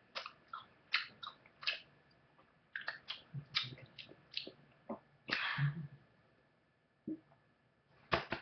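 A person chewing Hi-Chew chewy candy with the mouth partly open: a run of short wet smacks and clicks. About five seconds in comes a short breathy puff of air, then the chewing mostly stops.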